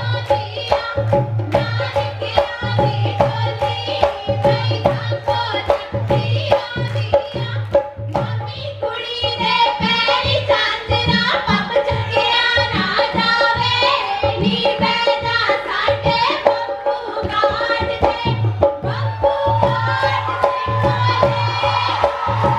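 Live Punjabi folk music for a Giddha dance: a hand drum beats a steady quick rhythm under a steady held note, with women's voices singing at the microphones, the singing growing stronger about a third of the way in.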